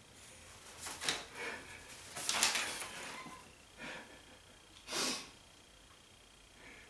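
A man's stifled laughter: five short breathy bursts with no voice in them, the longest and loudest about two seconds in.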